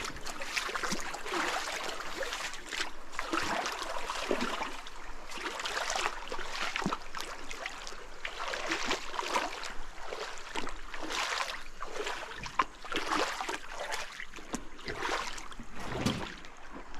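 Water splashing and sloshing in uneven surges as a car is washed down with river water.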